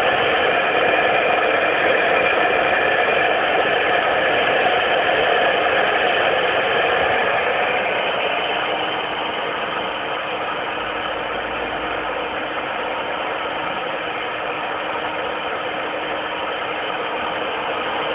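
CNC router spindle running and cutting a rubber sheet: a steady machine noise with a few held tones, a little quieter from about halfway through.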